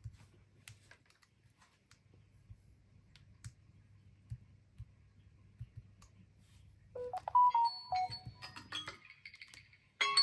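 Faint clicks and taps, then about seven seconds in a phone ringtone starts: a quick melody of short pitched notes that breaks off briefly near the end.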